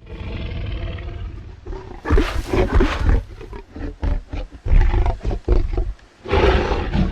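Film sound effect of a Tyrannosaurus rex vocalizing: a low growl, then loud roaring about two seconds in, a run of short pulsed grunts, and another loud roar near the end.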